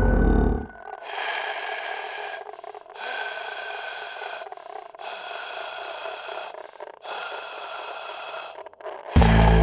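Background music dropping to a thin, filtered-sounding passage: four repeated phrases about two seconds apart with no bass, then the full, loud music comes back near the end.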